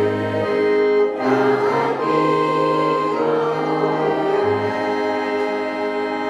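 Choral music with sustained chords over a bass line that changes note every second or so.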